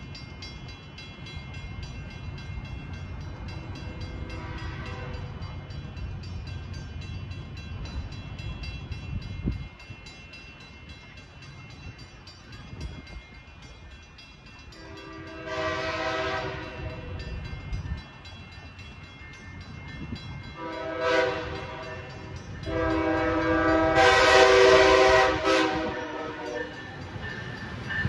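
Passenger train's air horn sounding a series of blasts over the low rumble of the train: a faint one about four seconds in, a longer one about halfway, then a short blast and a long one of about four seconds near the end, each louder than the one before.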